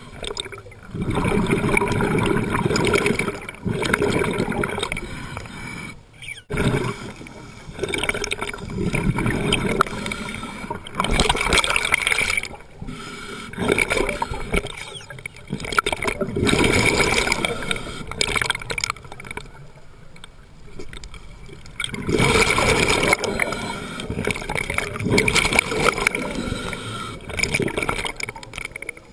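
Scuba regulator breathing underwater: loud bubbling, gurgling exhalations every few seconds, with quieter gaps between breaths.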